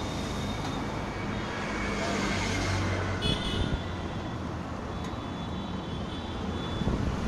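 Steady road traffic noise with engines running past, and a brief high clink about three seconds in.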